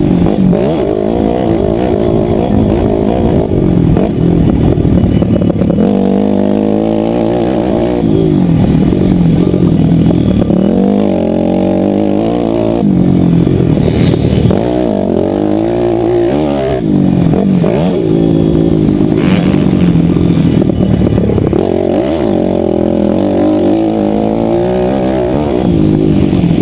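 Motocross bike engine heard on board at racing speed, revving up and dropping back over and over as the rider accelerates and shifts through the gears.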